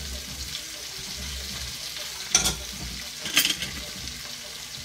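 Shrimp, tomatoes and freshly added potatoes sizzling in a frying pan, with two sharp clacks about a second apart midway through.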